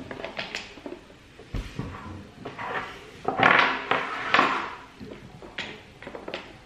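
Small wooden stacking-game blocks clicking and clattering against each other and the tabletop as they are handled. There is a longer, louder rattle of several blocks moved together a little past the middle.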